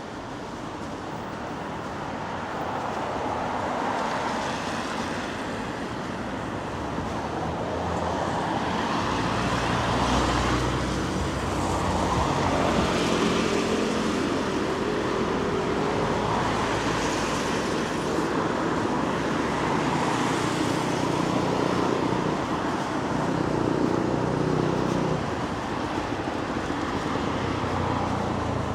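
Street traffic: vehicle engines and tyres on the road in a steady wash of noise. It grows louder from about ten seconds in, where a close vehicle's low engine hum holds for some fifteen seconds before easing.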